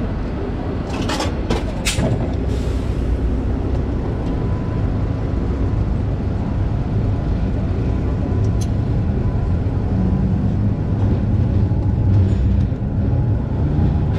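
Hong Kong tram running along its track, heard from the driver's cab: a steady low rumble and hum of the moving tram. There are a few sharp clicks and a short hiss in the first three seconds, and the hum grows stronger after about ten seconds.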